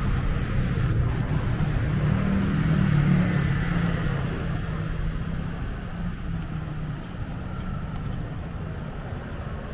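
Road traffic: a motor vehicle passing, with a low engine hum that grows loudest two to four seconds in and then fades back into steady traffic rumble.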